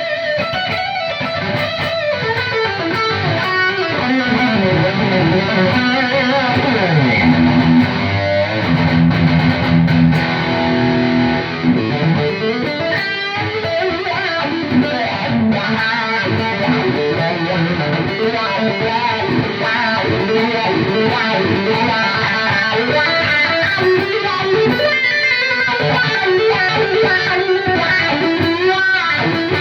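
ESP E-II Horizon electric guitar with EMG pickups, tuned to E standard, played through a lead-channel preset with an EQ pedal in the chain: single-note lead lines with pitch slides and held notes.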